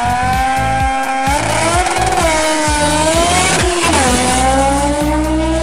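Turbocharged Mazda 13B rotary engine in a VW Beetle drag car revving hard and launching down the strip, its pitch dropping and climbing again at about two seconds and four seconds in as it shifts gears. A burst of tyre noise near the middle.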